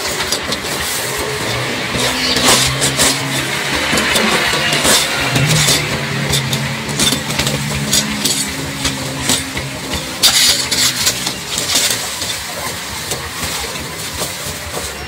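An engine running nearby, its low pitch holding steady and stepping up or down now and then, with scattered crackling clicks over it.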